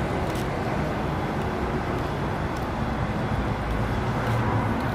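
Steady rumble of road traffic from the surrounding highway flyovers, heard outdoors through a phone microphone.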